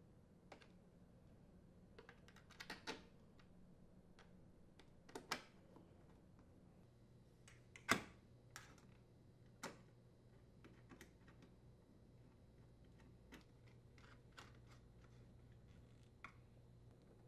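Scattered faint clicks and taps as screws are driven back in and tools and metal parts knock against the dishwasher's door panels, over quiet room tone. There is a quick cluster of clicks about two to three seconds in, and the sharpest click comes about eight seconds in.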